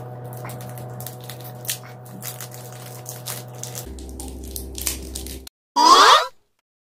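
A plastic chocolate-bar wrapper crinkles and crackles, with scattered sharp snaps as it is bitten and pulled at with the mouth, over a faint steady hum. About six seconds in the sound cuts out, and a loud, short swooping sound plays.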